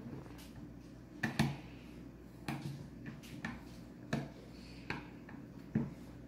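A string of sharp, irregular clicks and taps, about nine in all, as a toddler's finger pokes and pushes down the plastic straw spout on the lid of a stainless steel kids' water bottle.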